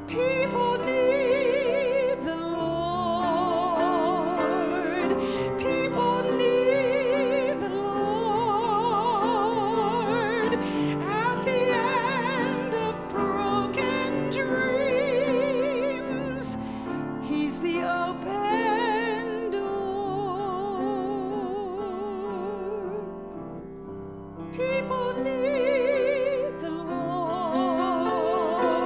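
A woman singing with a wide vibrato, accompanying herself on a grand piano. She breaks off briefly between phrases about three quarters of the way through, then goes on.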